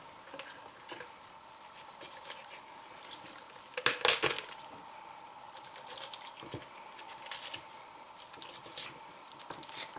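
Small keychain knife with a coarse edge cutting and working through raw, tough chicken flesh and joints: wet squishing with short crackling snips, loudest in a cluster about four seconds in. A faint steady hum runs underneath.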